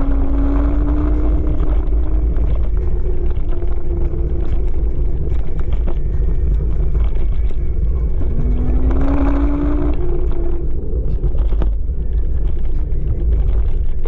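Kaabo Wolf King GT electric scooter riding, with heavy wind rumble on the microphone. The hub motor's whine rises in pitch twice as it speeds up, near the start and about eight seconds in.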